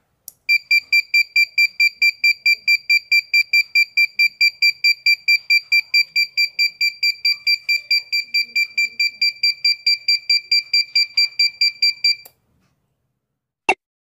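Electronic buzzer of a home-made laser tripwire alarm beeping rapidly, about four high-pitched beeps a second. The beam to its light sensor has been broken and the alarm latches on, going non-stop, then cuts off suddenly. A short sharp click comes near the end.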